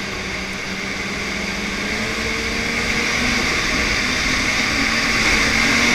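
Snowmobile engine running under way, its pitch and loudness rising slowly as it gathers speed.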